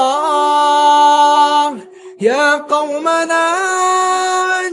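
A male reciter chants the Quran in melodic tajweed, holding long drawn-out notes. He breaks for a quick breath about two seconds in, then carries on.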